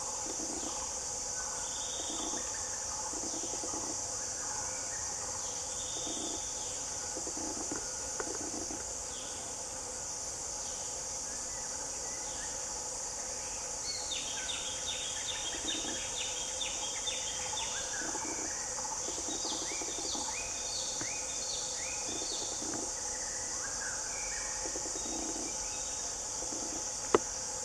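Forest ambience: a steady, high insect drone with birds calling over it, the calls turning into quick runs of repeated chirps about halfway through. One sharp click near the end.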